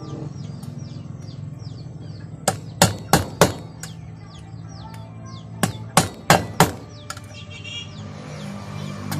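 Claw hammer striking a small workpiece held on a wooden plank, punching holes for a homemade cheese grater: two runs of four quick blows, about three a second, the first run about two and a half seconds in and the second a little over five seconds in.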